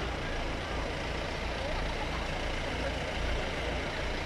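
Open-top safari jeeps idling: a steady low engine rumble.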